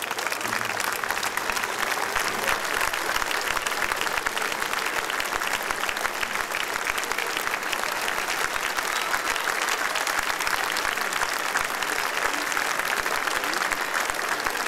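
A large audience applauding: dense clapping that swells up at the start and then holds steady.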